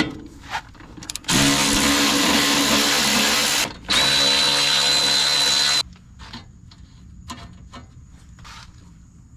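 Power drill running twice, each run about two seconds with a short break between, backing out the fasteners of a skid steer's access panel. Light clicks and knocks of handling follow.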